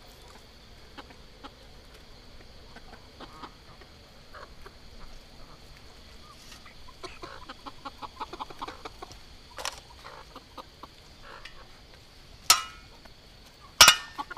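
Domestic chickens clucking in short quick pulses, with two sharp loud knocks near the end.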